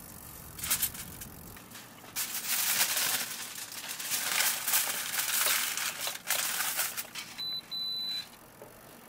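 Plastic food packaging crinkling and rustling as it is handled and opened, followed near the end by two short high electronic beeps in quick succession.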